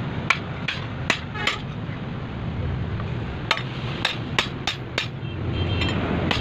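A hand hammer striking an axe head on a steel anvil block, with sharp metallic blows: four in the first second and a half, a pause of about two seconds, then another run of five.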